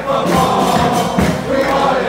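A crowd of football supporters singing a chant together, many loud voices holding long notes.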